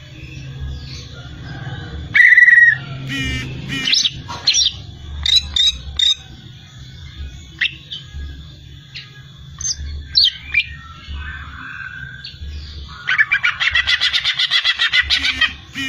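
Cucak ijo (green leafbird) singing a varied string of whistles and chirps. About two seconds in comes a loud buzzy note, and near the end a fast, loud rattling trill of about two and a half seconds, over a low background hum.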